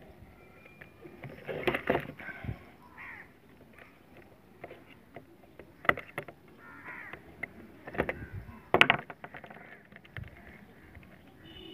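Crows cawing several times, mixed with sharp clicks and taps of a screwdriver and wires being worked at a plastic switchboard's terminals; the clicks near the middle and near the end are the loudest sounds.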